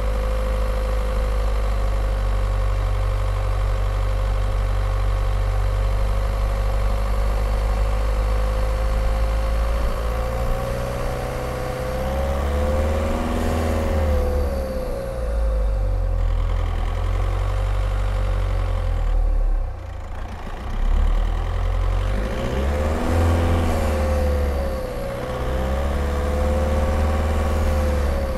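Skoda Octavia 1.9 TDI's four-cylinder turbodiesel engine running as the car drives. The engine speed is steady at first, then the revs rise and fall several times, with a brief drop about two-thirds of the way through.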